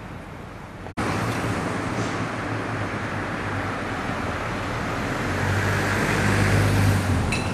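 Road traffic noise, with a motor vehicle's engine growing louder as it passes close and easing off near the end. The sound jumps up suddenly about a second in.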